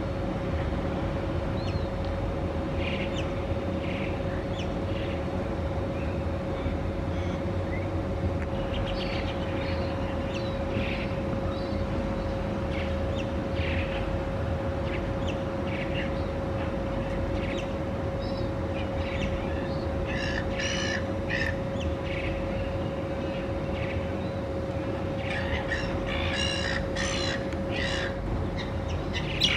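Little ravens cawing in short bouts, mixed with other bird calls, thickest about two-thirds of the way through and again near the end. Under them runs a steady hum and a constant low rumble.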